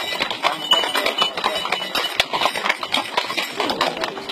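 Hooves of many horses walking on an asphalt road: a dense, uneven clatter of clip-clops.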